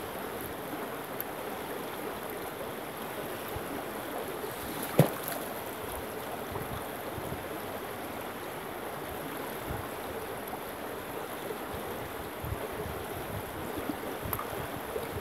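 Shallow stream running over rocks, a steady rush of water, with a single sharp knock about five seconds in.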